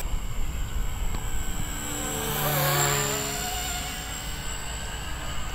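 Blade 150S electric RC helicopter whining steadily in flight some way off, its motor and rotors giving a thin high tone. Around the middle an engine sound passes by, swelling and fading.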